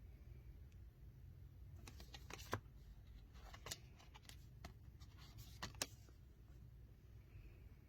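Matte tarot cards being handled and flipped through one at a time: a few light clicks and short soft slides of card stock between about two and six seconds in, over a low steady hum.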